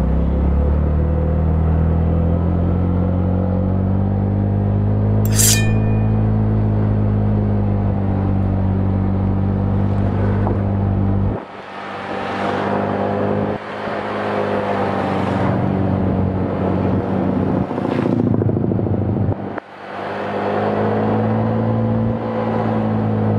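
Motorcycle engine running under way while riding, with the throttle closed sharply twice, about halfway and again about two-thirds in, before it picks up again. A rushing hiss comes in while the engine is eased off, and there is a brief high chirp about five seconds in.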